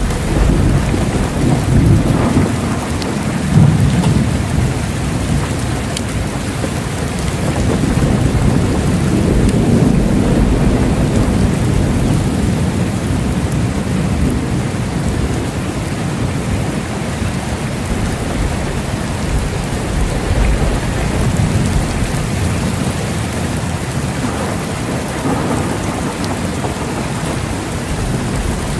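Steady rain with thunder rumbling low beneath it, swelling near the start and again about a third of the way through.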